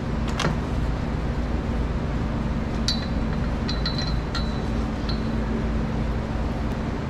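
Light metallic clinks of steel parts knocking together on a forklift mast, about six of them with a short ring, bunched between about three and five seconds in, over a steady low hum.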